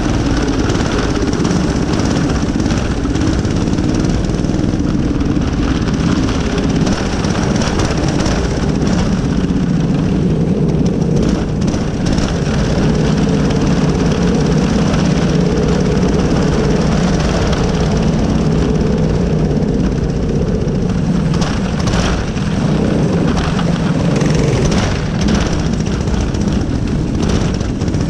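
A kids' racing kart's single-cylinder Predator small engine running hard at high revs, heard on board the kart. The drone eases briefly a couple of times near the end.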